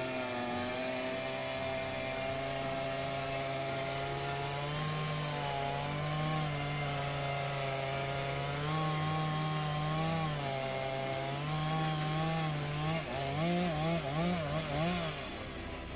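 Chainsaw running at high speed, holding a steady pitch as it cuts, then revved up and down several times in quick succession near the end.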